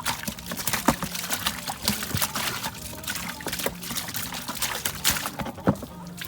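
Water pouring and trickling, with repeated clatter and knocks of things being handled in it.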